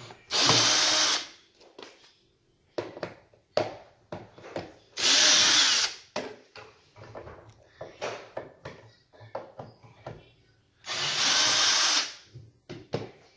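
Power drill backing screws out of the brackets that hold a dining chair's seat base, in three runs of about a second each. Between the runs come small clicks and knocks of handling.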